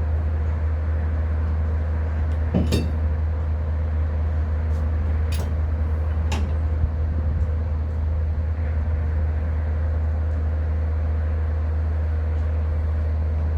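A steady low engine drone, with a few sharp metallic clinks of metal parts being handled, three of them in the first half.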